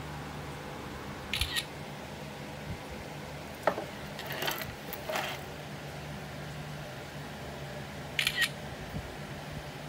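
Smartphone camera shutter sound, heard twice as photos are taken, about a second and a half in and again just after eight seconds. Between them come soft handling noises as the phone is moved, over a steady low hum.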